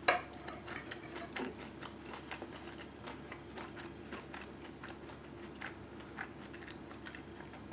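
A person chewing mouthfuls of chicken burger close to the microphone: faint, irregular soft crunches and mouth clicks. A sharper click right at the start, over a faint steady hum.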